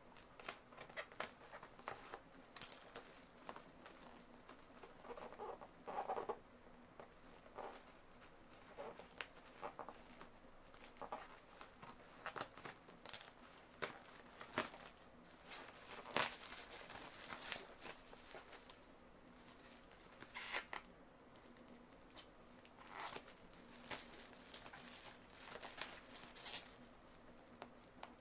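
Plastic parcel wrapping being cut with scissors and pulled open by hand: irregular crinkling and rustling of black plastic and clear packing tape, with sharp snips and tearing sounds.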